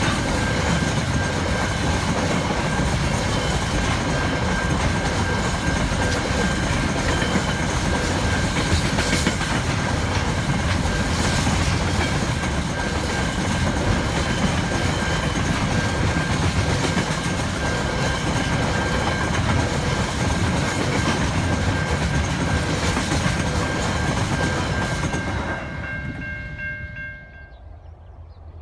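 A train rolling past close by: wheels rumbling and clacking over the rails, with a steady high ringing tone throughout. The sound drops away sharply near the end.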